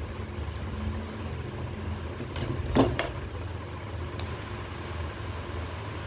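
A steady low hum of background noise, with a few light clicks and one sharper knock about three seconds in from hand work with wires and tools on an electrical control panel.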